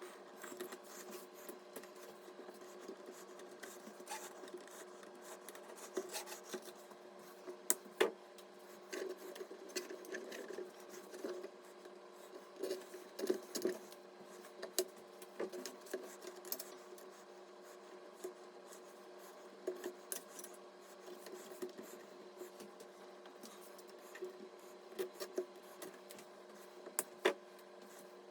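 Hands handling computer parts: scattered small clicks, taps and rubbing of plastic and metal, over a steady low hum.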